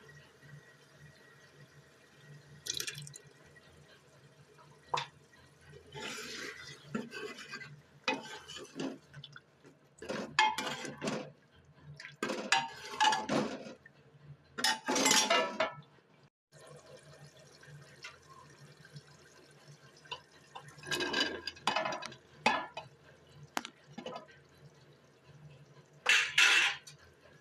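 Kitchen work with water: irregular splashes and clinks of dishes and a pot, coming in short bursts over a steady low hum.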